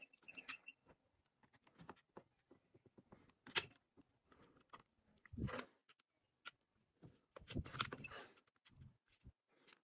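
Handling of a plastic battery adapter for a cordless impact wrench: scattered light clicks, taps and scrapes of plastic and tools. The sharpest click comes about three and a half seconds in, with a few soft knocks later.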